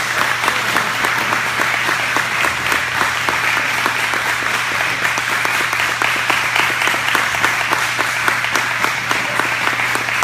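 Audience applauding, many hands clapping at a steady, even level, with a steady low hum underneath.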